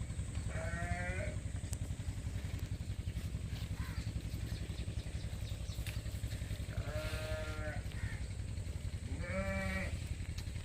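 Three wavering bleats from livestock, one about half a second in and two more near the end, over a steady low rumble.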